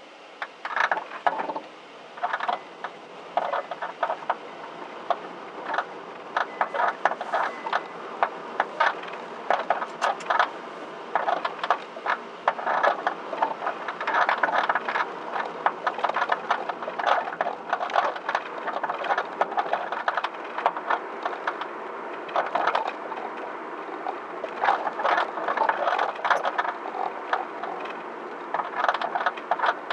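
DIY-fitted aftermarket coilover suspension making an abnormal noise, a dense, irregular run of sharp clicks and rattles. The noise appeared once the coilovers were set to their lowest height, and raising the car 1 cm has not stopped it.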